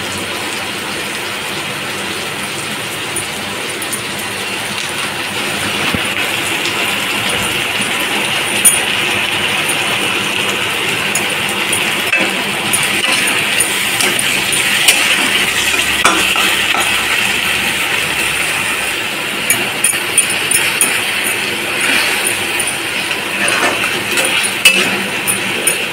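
Chopped onions and tomatoes sizzling in oil in a metal kadai, with a metal spatula scraping and clinking against the pan. The sizzle grows louder about six seconds in, and the clinks come more often in the second half.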